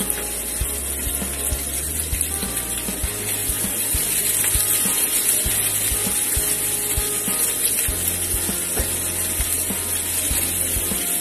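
Chopped onion and garlic sizzling in oil in a nonstick frying pan, a steady hiss, with light taps and scrapes of a spatula as it is stirred.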